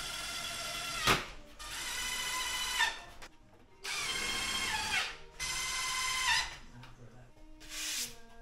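Cordless drill-driver running screws into an 18 mm MDF cabinet carcass: four short runs of a steady motor whine, most dropping in pitch as the screw pulls tight, with sharp knocks between runs.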